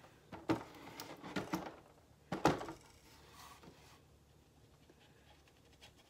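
Handling noise from a wet painted canvas being tilted and set down over a disposable aluminium foil tray: a few short knocks and crinkles in the first half, the loudest about two and a half seconds in, then only faint room tone.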